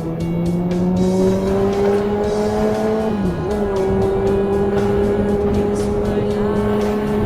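Kawasaki ZX-6R inline-four engine pulling under acceleration, its pitch rising, with a brief drop at an upshift about three seconds in before it holds steady at speed.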